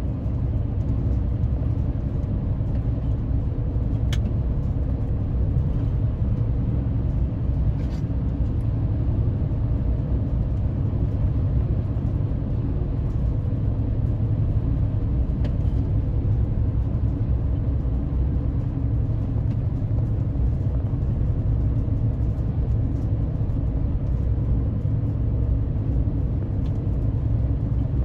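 Steady low rumble of road and engine noise from a car driving at high speed, heard from inside the cabin, with faint ticks about four and eight seconds in.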